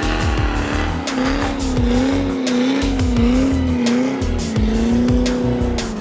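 Chevrolet C4 Corvette doing a burnout: rear tyres squealing and the V8 held at high revs, its pitch wavering. Music with a steady beat plays over it.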